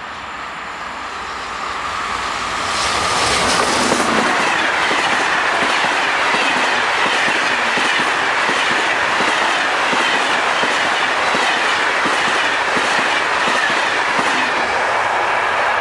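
A locomotive-hauled passenger train approaches and passes close by at speed. The noise builds over the first few seconds, the locomotive goes by about three seconds in, and then the coaches follow with a steady rush of wheels on rail and a regular clickety-clack of wheel clicks.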